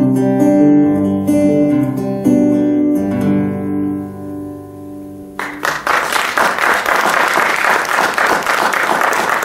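Acoustic guitar playing the closing chords of a song, the notes ringing and dying away. About five seconds in, an audience bursts into applause that goes on to the end.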